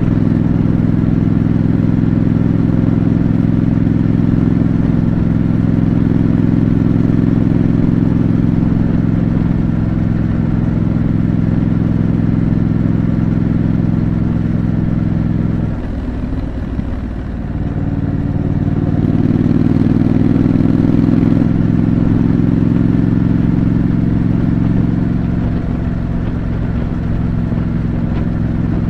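Triumph Scrambler 900's parallel-twin engine with stock exhaust, running steadily under way. About two-thirds through it dips briefly, as at a gear change, then pulls harder before easing back.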